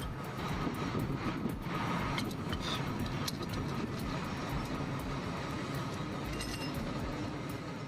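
Steady low vehicle rumble, with scattered light clicks and taps throughout.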